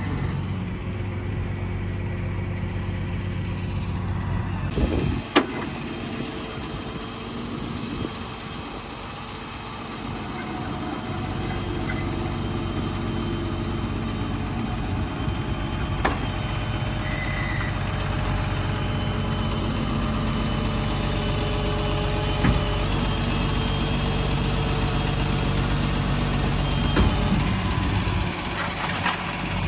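Rollback tow truck's engine running steadily, with a few sharp metallic clanks while the car is tied down and the bed is tilted back level.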